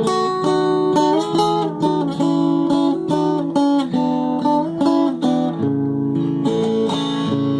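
Instrumental break in a Brazilian country song: a plucked viola caipira plays a melody of quick picked notes over strummed accompaniment, with no singing.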